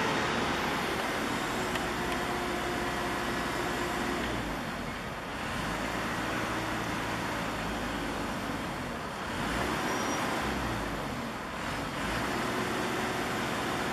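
Diesel-electric locomotive running as it slowly hauls a string of freight wagons along the station tracks: a steady engine drone with a low rumble, easing slightly a few times.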